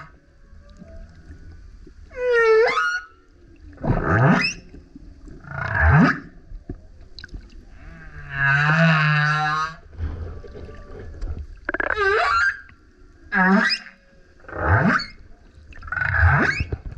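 Male humpback whale singing: a string of about eight separate calls, most of them quick whoops that sweep sharply upward in pitch, with one long, even moan about nine seconds in.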